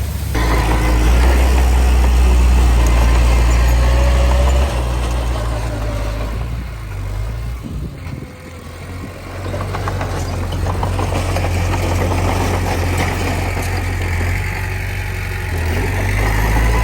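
Heavy diesel earthmoving engine running hard, easing off about halfway through and then picking up again toward the end.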